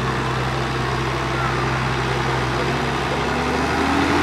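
A tractor engine running at a steady speed, getting slightly louder near the end.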